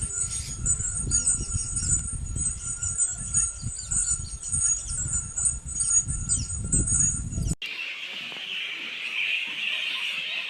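Bats squeaking and chittering in rapid high-pitched chirps over an irregular low rumble. About seven and a half seconds in, it cuts abruptly to a different recording with a steady, high hiss-like sound.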